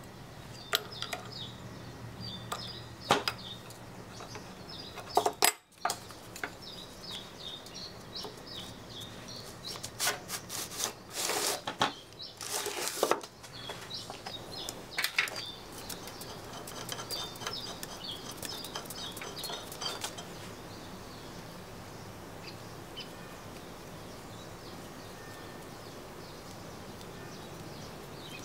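Hand tools clinking, knocking and scraping against the cast-iron drive unit of a South Bend lathe during disassembly, with scattered short high squeaks. The clatter is busiest in the first twenty seconds, with longer scrapes around the middle, and fades to a steady background near the end.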